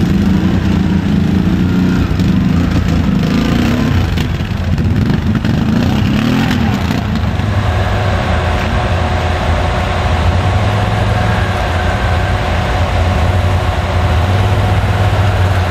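Off-road vehicle engines running. In the first half the pitch wavers and rises as an engine is revved. About halfway through it settles into a steady idle.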